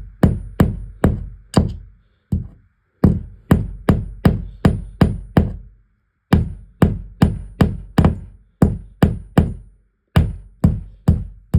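Hammer blows struck steadily about twice a second, in runs of several strikes with short pauses between, tapping out a mounting hole for a carbon monoxide alarm.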